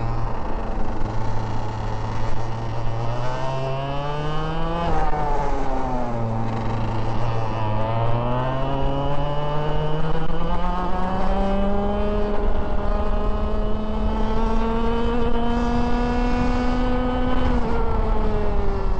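Parilla two-stroke kart engine heard on board the kart, revving up, dropping off sharply about five seconds in, then climbing steadily for about ten seconds before falling away again near the end.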